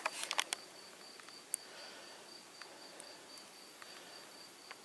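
A cricket chirping in a steady, high, evenly pulsed trill, with a few sharp clicks in the first half second and one more about a second and a half in.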